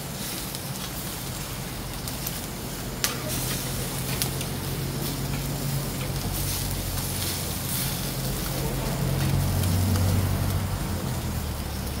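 Eel pieces sizzling and crackling as they grill on a wire mesh over charcoal, with one sharp pop about three seconds in. A low steady hum runs underneath from a few seconds in and is loudest near the end.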